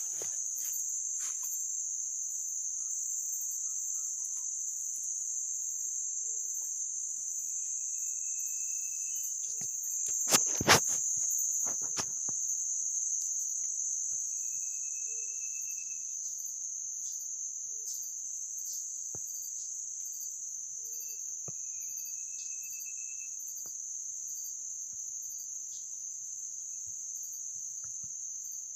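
Steady, high-pitched buzzing of forest insects, with faint held whistle notes every several seconds. Two sharp knocks about ten seconds in are the loudest sounds.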